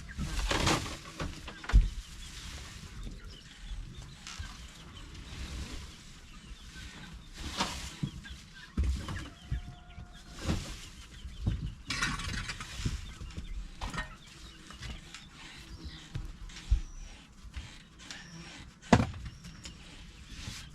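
Free-range chickens clucking on and off, with scattered sharp knocks, the loudest a little under two seconds in and near the end.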